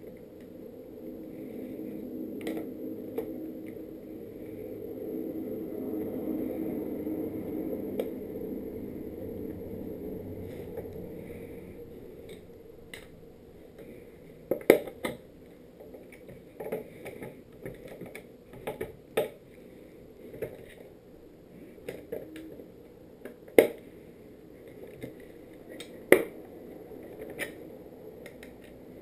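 Skateboard truck hardware and a skate tool handled during assembly. A low muffled sound swells and fades over the first twelve seconds, then scattered sharp metallic clicks and knocks follow, several of them loud.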